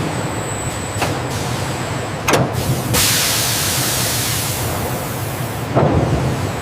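Injection moulding machine running with a steady low hum and a few clunks. About three seconds in a loud hiss sets in, like air or hydraulic pressure being released, and it ends in a clunk near the end.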